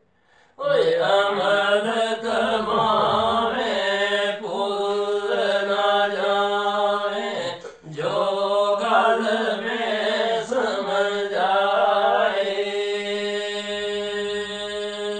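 Men singing Pahari kalam, devotional verse, in long winding unaccompanied phrases over a steady low held tone. The singing begins about half a second in, breaks briefly about eight seconds in, and ends on a long held note.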